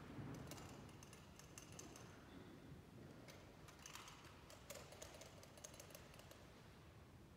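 Faint, quick metallic clicks and taps of altar vessels being handled: the consecrated host in its lunette being fitted into a gold monstrance for exposition. The clicks come in scattered clusters and die away about five seconds in.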